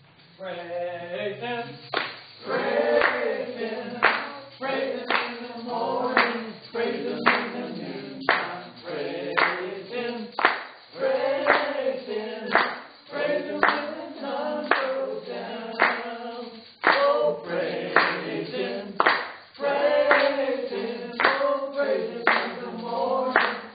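A small congregation singing a worship song a cappella, kept in time by a tambourine and hand claps striking a steady beat about once a second.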